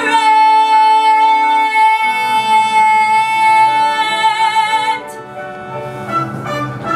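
A show tune's long held high note, lasting about five seconds over the accompaniment, then the accompaniment plays on more softly.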